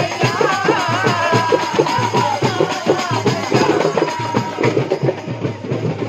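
Fast, even folk drumming on several small stick-beaten drums. A high, wavering melody line runs over it for about the first four seconds, then the drums carry on alone.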